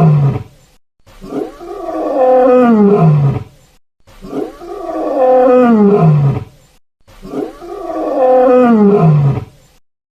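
Lion roaring: one long roar that falls in pitch, repeated three times about three seconds apart, after the end of a previous roar.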